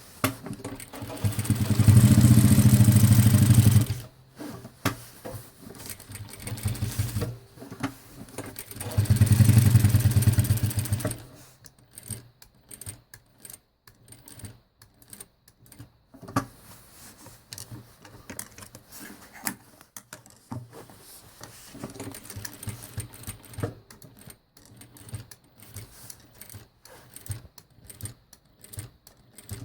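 Jack JK 9100-BH lockstitch sewing machine running at speed in two bursts of a few seconds each, stitching through a thick stack of fabric layers. Scattered quieter clicks and knocks follow.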